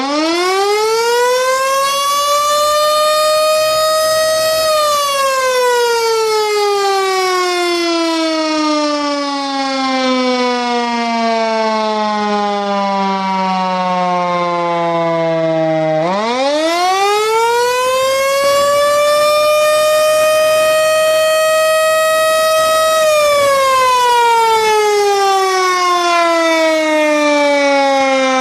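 LK-JDW245 electric motor-driven siren (0.75 kW, 220 V) wailing loudly. It winds up to its top pitch in a few seconds, then coasts down slowly for about ten seconds. It winds up again about halfway through, holds its top pitch for a few seconds, and falls away again near the end.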